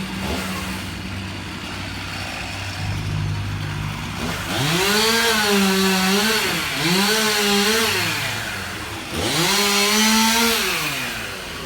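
Chainsaw revved up three times, about four and a half, seven and nine seconds in. Each time the pitch climbs, holds high for a second or two and drops back. Before the first rev, an engine runs steadily at a low pitch.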